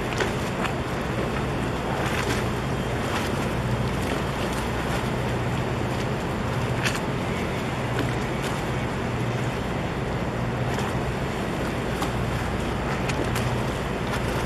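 A ship's engine drones steadily and low, over the wash of harbour water and wind on the microphone. A few small splashes can be heard.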